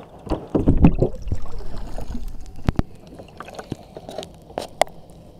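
Water splashing and sloshing against the hull of a model RC boat for about two seconds, followed by a few sharp knocks and clicks on the hull.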